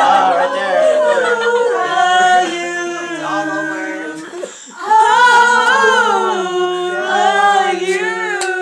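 A group of voices singing together a cappella in harmony, with long held notes and a short break between phrases about four and a half seconds in.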